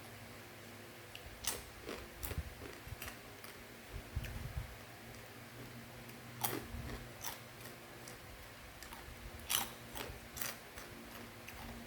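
Scattered, irregular crisp crackles and clicks from crunchy fried macaroni snack being eaten and handled, over a faint steady hum.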